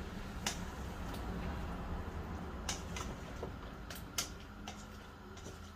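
Oil heating in a wok on a lit gas burner: a faint steady low rumble with scattered faint ticks and crackles from the pan.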